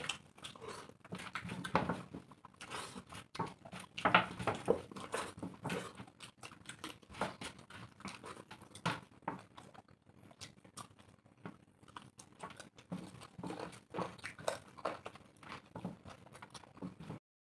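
Two people eating rice and chicken curry by hand: close, irregular chewing and wet smacking, with fingers mixing and scooping rice on steel plates. The sound is a busy patter of small clicks that cuts off abruptly near the end.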